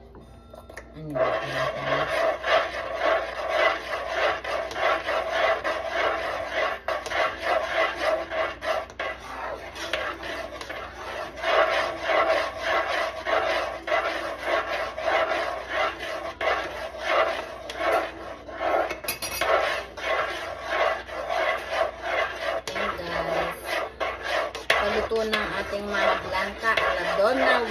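A utensil scraping and rubbing against a cooking pot in rapid, continuous strokes as a thick maja blanca mixture is stirred while it cooks.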